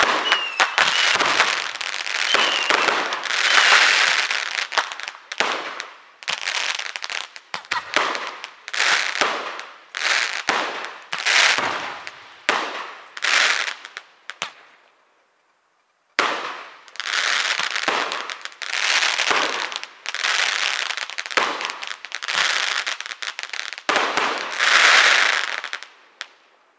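Fireworks going off in quick succession: sharp reports, each followed by a crackling hiss that fades over about a second, with a brief whistle at the start and a short gap about two thirds of the way through.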